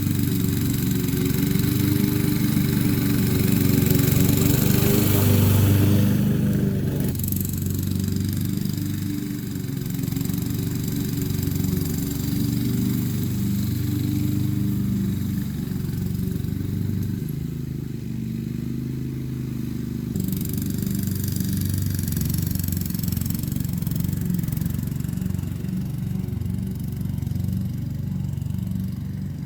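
Honda HRX217 walk-behind lawn mower's engine running steadily under load. Its higher hiss drops off about seven seconds in.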